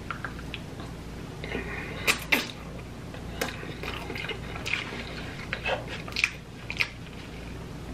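A person eating close to the microphone: irregular wet chewing smacks and clicks, over a steady low hum.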